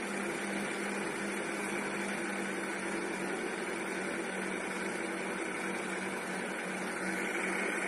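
Electric meat grinder running steadily as it mincing kubba dough through its cutting plate, a constant motor hum with one even pitch.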